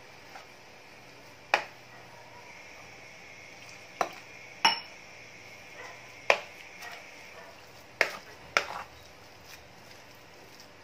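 A hand mixing wheat-flour batter in a plastic bowl: six sharp knocks, one to two seconds apart, the third with a brief metallic ring.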